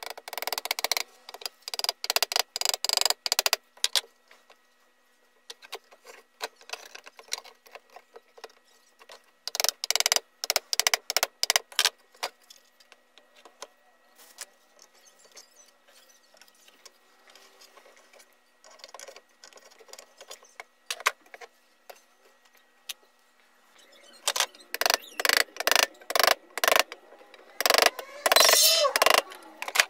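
A hammer tapping the electric planer's motor field core and plastic housing, in three runs of rapid strikes with quieter clicks and handling of parts between them.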